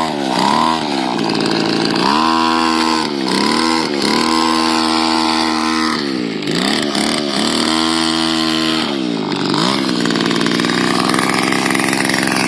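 Small two-stroke string-trimmer engine driving a homemade RC car, revving up and down about four times and holding high revs for a second or two each time. It settles into steadier running for the last couple of seconds.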